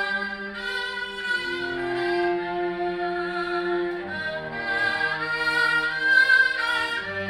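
Bowed strings playing live chamber music: a high melody in long held notes over sustained lower notes, the pitches changing every second or two.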